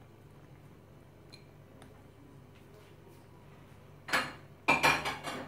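Cookware clattering near the end: one sharp knock, then a quick run of ringing clinks as kitchenware is handled against the pan.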